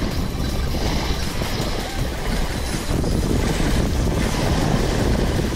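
Steady wind buffeting the microphone, with waves washing in underneath.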